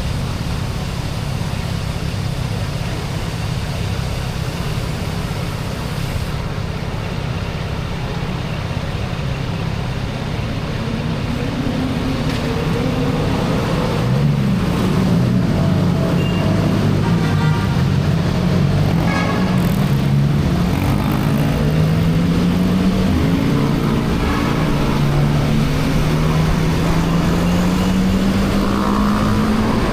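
CFMoto 675NK's three-cylinder engine through its stock exhaust, under way with wind noise. It is a steady low drone for about the first twelve seconds, then the engine note rises and falls with throttle and gear changes, and climbs steadily under acceleration near the end.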